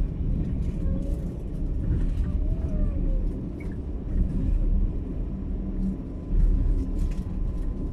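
Passenger train running at speed, a steady low rumble of the carriage with scattered short clicks and knocks from the wheels and running gear.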